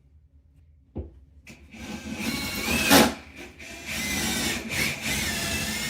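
A knock, then a power drill running for several seconds with a wavering whine, loudest about three seconds in.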